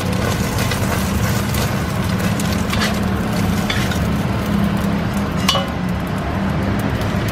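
A steady low hum, like a motor or burner running, with a few sharp clinks of metal utensils, the loudest about five and a half seconds in.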